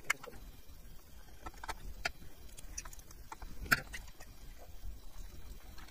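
Faint, irregular clicks and taps of a small screwdriver driving two tiny screws into a scale model truck's frame as the parts are handled, with one sharper click a little over halfway through.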